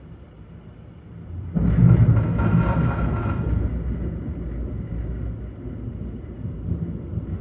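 Thunder: a sudden clap about a second and a half in, crackling for about two seconds, then a long low rumble.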